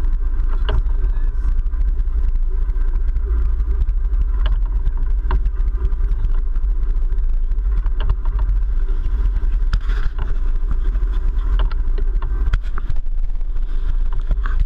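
Sportfishing boat's engines running, a loud steady low rumble, with a scattering of short sharp clicks.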